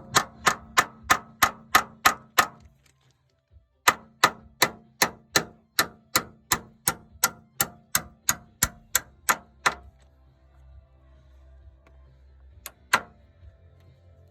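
Hammer tapping an insert removal tool to drive a door hinge insert on a Jeep Wrangler JK. Quick, ringing strikes come about three a second: a short run, a pause, a longer run, then two last taps near the end.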